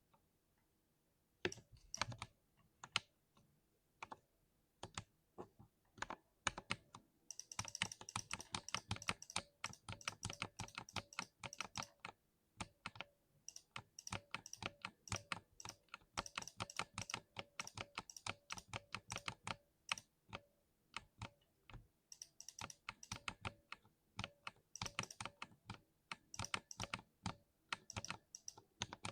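Typing on a thocky 60% mechanical keyboard. A few separate keystrokes come first, then fast runs of typing broken by short pauses.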